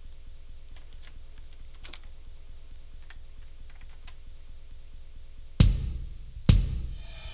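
Opening of a music track: a quiet held chord over a low pulsing hum with scattered soft clicks, then two loud drum hits with noisy tails about five and a half and six and a half seconds in.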